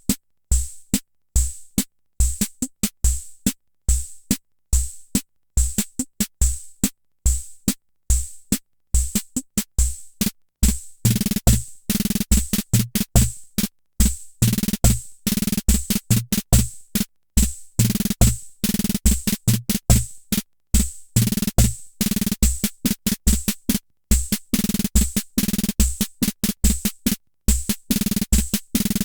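Hammond Auto-Vari 64 analog rhythm machine playing a preset beat: short low thumps and crisp high ticks in a steady repeating pattern. About eleven seconds in the pattern turns busier, with added low pitched drum tones.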